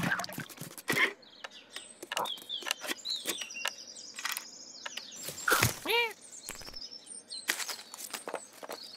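Cartoon foley of a garden scene: birds chirping in the background under a run of quick scratchy clicks as a cat scrambles up a tree, with a short squeaky animal call about six seconds in.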